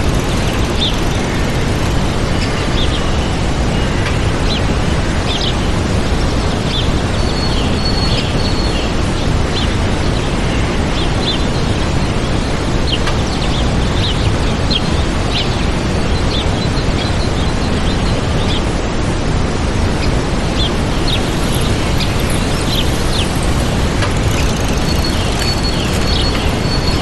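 Waterfall rushing steadily, with small birds chirping in short, high calls throughout.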